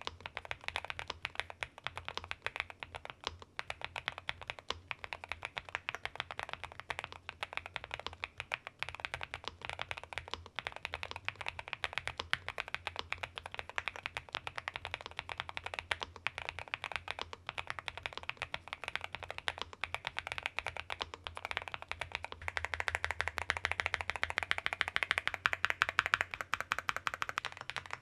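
Typing on a NuPhy Halo96 V2 mechanical keyboard fitted with light NuPhy Mint linear switches: a fast, continuous stream of keystroke clacks with a rolling 'dororok' character. The typing gets denser and louder for a few seconds near the end.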